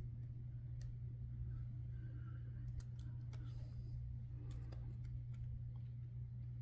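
Faint scattered clicks and light handling noises as fingers peel a small dustproof mesh sticker from its backing and handle the phone, over a steady low hum.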